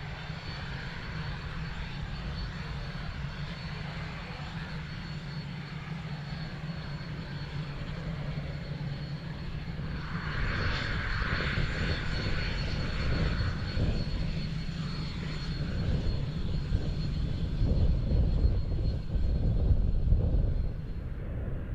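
Northrop F-5's twin J85 turbojet engines running: a steady high whine over a low rumble. About halfway through the sound grows rougher and fuller, and it keeps getting louder toward the end.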